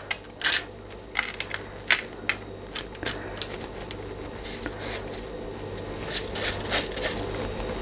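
Drained, soaked basmati rice tipped from a metal sieve into a foil tray and spread by hand: scattered light taps, clicks and rustles of wet grains, sieve and foil, with a cluster of them near the end.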